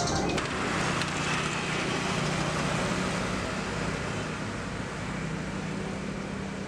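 Road traffic: motor scooters and a car running along a street, with a steady engine hum that slowly fades.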